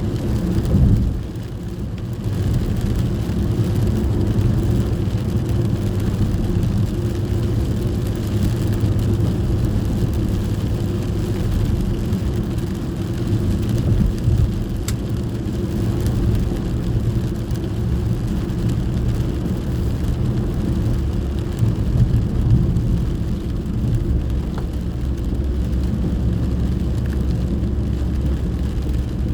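Inside a moving car in the rain: steady low road and engine rumble, with the hiss of rain on the car.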